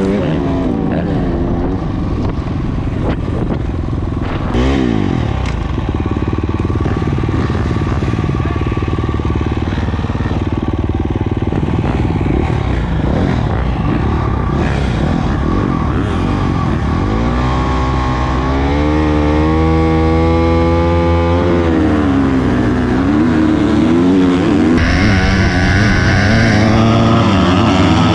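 Dirt bike engine under load in deep sand, revving up and down as the rider works the throttle. The pitch keeps sliding, with a long climb and drop about two-thirds of the way through.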